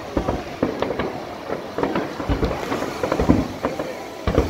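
Fireworks display: aerial shells bursting in an irregular run of bangs, about three or four a second, the loudest a little past three seconds in and again just before the end.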